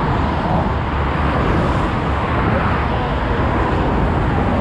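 Steady motorway traffic noise: a continuous rush of tyres and engines from passing cars.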